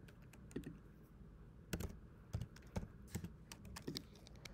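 About eight quiet, irregular clicks as a sum is keyed into a computer calculator on keys or buttons.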